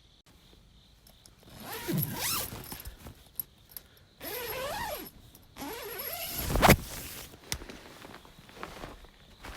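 A zipper pulled open in three long strokes with a rising and falling rasp, the last ending in a sharp knock.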